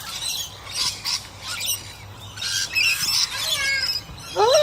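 Rainbow lorikeet chattering: rough screechy squawks mixed with a few short, high whistled notes.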